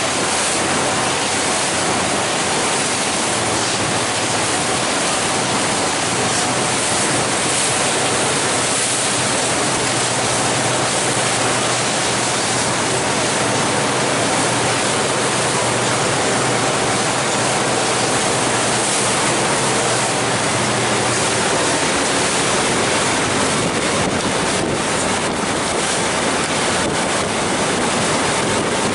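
Steady rush of wind buffeting the microphone and water rushing past the hull of a glacier cruise boat under way, with sharper crackling gusts near the end.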